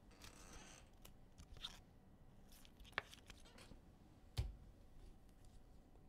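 Quiet handling of trading cards: a brief soft rustle near the start, then two sharp clicks about a second and a half apart.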